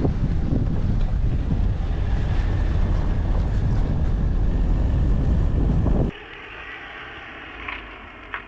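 Loud wind buffeting the microphone, a heavy low rumble that starts and stops abruptly with a cut about six seconds in, followed by quieter background.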